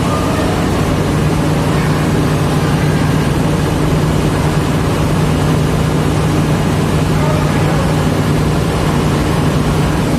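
Large diesel engine running steadily, a loud even drone with a deep hum.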